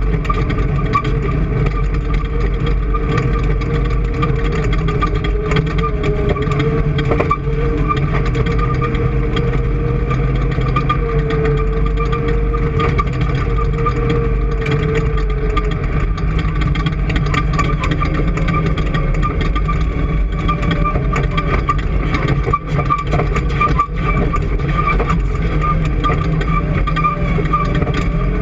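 Engine running steadily at a constant speed, with a steady whine above the engine note.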